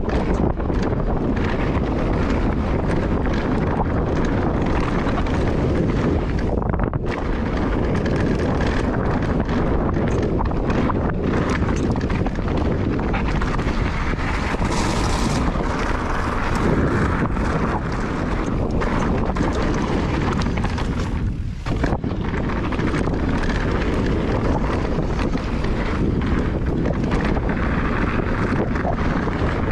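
Wind rushing over the microphone of a handlebar-mounted camera on a mountain bike riding fast downhill, with the steady rumble of tyres over dirt trail and gravel and many small knocks from the bike.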